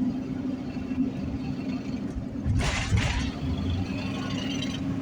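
Road noise of a vehicle driving across a bridge: a steady low drone with a steady hum. About two and a half seconds in, a brief louder rush of noise passes.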